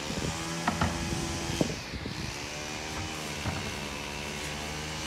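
A steady mechanical hum with a low pitched drone, with a few sharp clicks or knocks in the first two seconds.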